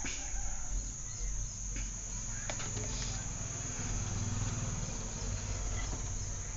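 A steady high-pitched whine over a low hum, with a few faint clicks.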